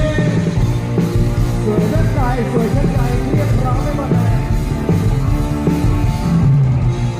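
Live ramwong band playing Thai dance music with a steady beat.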